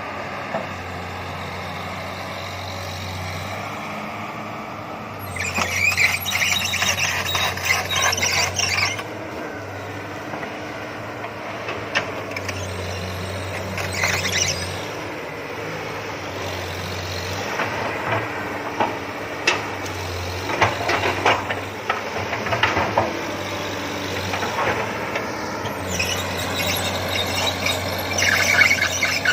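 Komatsu PC200 excavator at work, its diesel engine running steadily. Two stretches of high, rasping squeal of metal against metal come about five seconds in and again near the end, with scattered sharp cracks and knocks in between.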